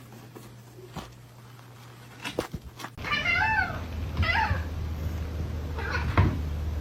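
A domestic cat meowing: two meows that rise and fall in pitch about halfway through, then a fainter one near the end, after a few light clicks.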